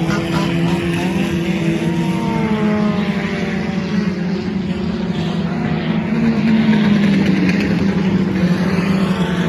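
Sport compact race cars' four-cylinder engines running at racing speed, several at once. Their pitch rises and falls as the cars accelerate and pass.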